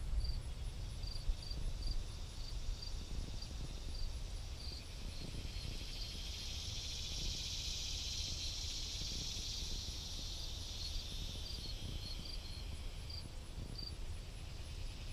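Summer insects in the open air: short high chirps repeating two or three times a second, joined midway by a high insect buzz that swells up over a few seconds and fades out again, over a low rumble of wind on the microphone.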